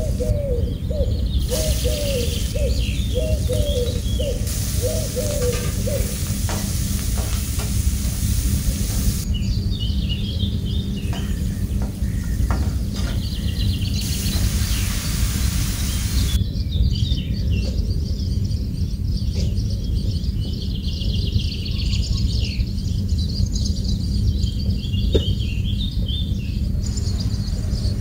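Food frying in oil in a pan, sizzling as a spatula stirs it, with birds chirping in the background. The sizzling stops about two-thirds of the way through, leaving the bird chirps over a steady low rumble.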